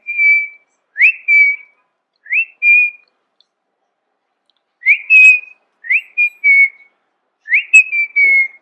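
A person whistling over and over to a puppy: about six short calls, each a quick upward slide into a held note, with a pause of a couple of seconds in the middle.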